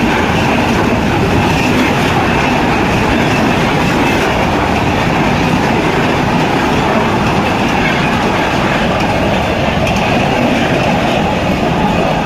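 Indian Railways BCNA covered freight wagons rolling past close by at speed: a loud, steady rumble and rattle of steel wheels on the rails.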